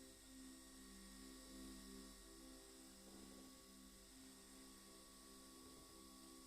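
Near silence: a faint steady electrical hum, with faint low held tones that come and go.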